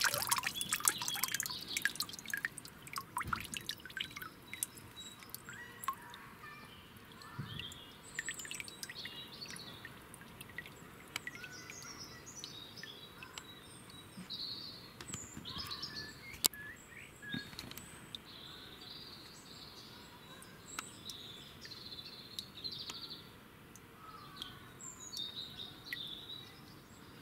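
Water splashing and dripping in a quick run for the first two or three seconds as frog spawn is put back into a pond. After that, birds chirping and singing, with an occasional small click or drip.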